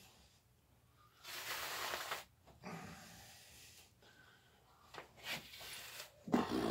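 Heavy breathing from a man straining to pull a deer's hide down off the carcass by hand: one long hard breath, a few shorter ones, and a louder grunt near the end.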